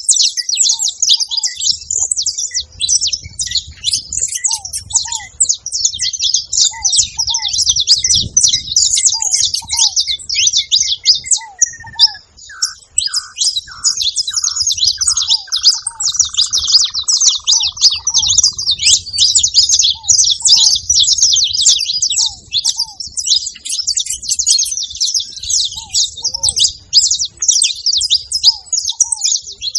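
A group of saffron finches chirping and twittering together in a dense, high-pitched, continuous chorus. A lower short note repeats in pairs underneath, and a falling, stuttering tone passes through about halfway in.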